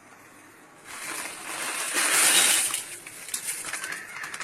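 Dried long peppers (pippali) poured into a dry pan on the stove: a rustling, rattling pour that starts about a second in, is loudest a little past the middle, and tails off.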